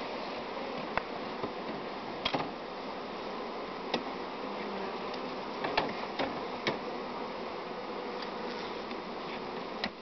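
Steady buzzing of a honeybee colony, many bees in the air around open hive boxes. Sharp clicks and knocks come about seven times at uneven intervals as the wooden hive boxes are worked with a metal hive tool.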